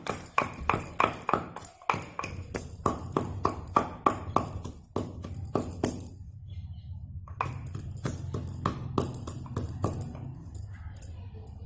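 Wooden mortar and pestle pounding whole spices and fresh ginger for masala chai: quick repeated strikes, about three a second, with a short break about halfway before the pounding resumes. A low steady hum lies underneath.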